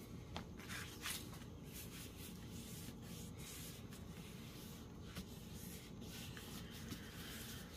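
Faint rubbing and rustling of paper as hands press and smooth a freshly glued paper pocket flat on a table.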